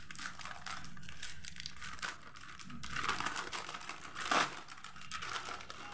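Foil-lined plastic snack packet crinkling as it is cut open with scissors: a continuous crackly rustle, with one sharper, louder crinkle about four and a half seconds in.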